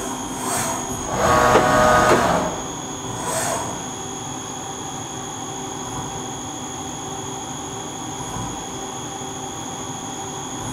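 Fadal 4020 CNC vertical machining center running a program: a steady high-pitched machine whine, with three short rushes of noise in the first few seconds, the loudest lasting about a second.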